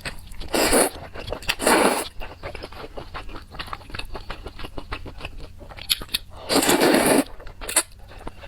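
Close-miked eating of crisp spicy chili peppers: steady wet chewing and crunching, with louder crunchy bites about half a second in, near two seconds, and around six and a half to seven seconds.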